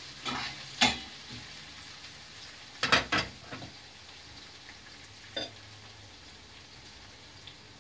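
Chopped green peppers frying in oil in a stainless steel pan, a faint steady sizzle. A few sharp clinks of metal utensils come over it, the loudest cluster about three seconds in.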